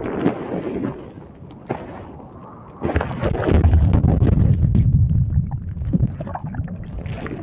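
Seawater churning and rushing over the microphone in the surf, a dense low rumble that surges up suddenly about three seconds in and then eases off.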